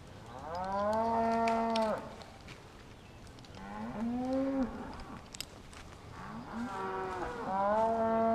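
Cattle mooing: three long calls, each held on a steady pitch and then falling away, the last one running on past the end.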